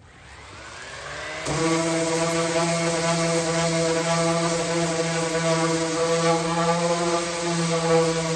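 Corded random orbital sander with 60-grit paper spinning up, its pitch rising for about a second and a half. It then runs steadily and louder as it works against a fiberglass boat hull, sanding at old epoxy paint and gelcoat.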